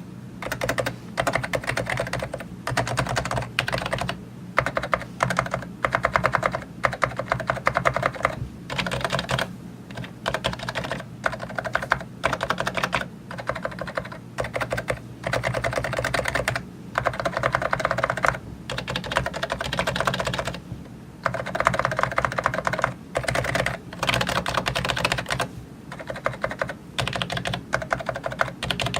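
Fujitsu Libertouch keyboard with a silencing ("silent") tuning being typed on: quick runs of keystrokes lasting a second or two, broken by short pauses.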